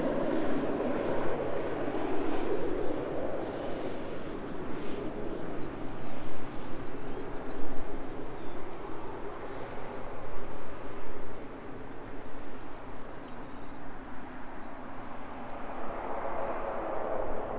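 Light single-engine propeller plane touching down and rolling out on the runway. Its engine and propeller noise fades as it moves away and swells again near the end.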